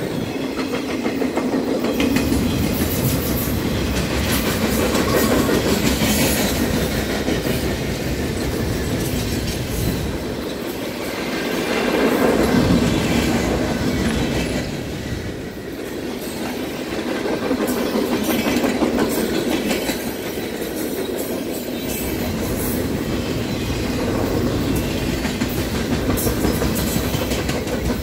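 Freight train flatcars loaded with military vehicles rolling past close by, wheels clicking over the rail joints. A low rumble swells and eases every several seconds as the cars go by.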